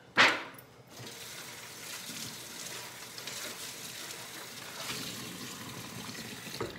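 Kitchen faucet running steadily into a stainless-steel sink while a disposable aluminum foil pan is rinsed under it. A short, sharp clatter comes just before the water starts.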